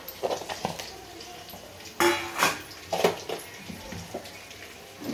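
Stainless steel pots and a spoon clinking and clattering in a few sharp knocks, the loudest about two seconds in and more around three seconds in.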